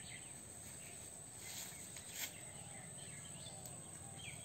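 Quiet pondside ambience: a steady high insect drone, with a bird calling in quick series of short repeated notes that begin again near the end. A single faint click a little after two seconds in.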